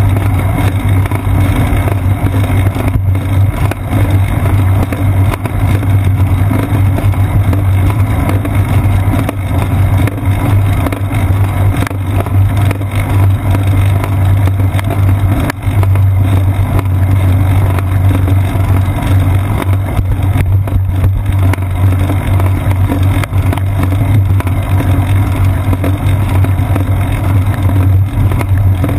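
Wind and road vibration on a seat-post-mounted GoPro Hero 2 on a moving bicycle: a loud, steady low rumble with a hiss over it.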